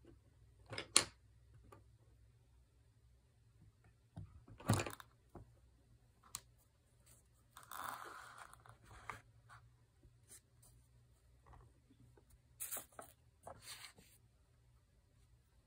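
Faint, scattered taps and scrapes of a brush and hands working on a sheet of watercolour paper, with a short papery rustle about eight seconds in and a few quick knocks near the end.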